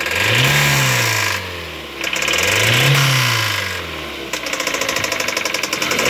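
A car's four-cylinder engine is revved up and back down twice, then settles with a rapid, even knocking. The title hints that the knock is a rod knock, while the owner suggests it might be the cam.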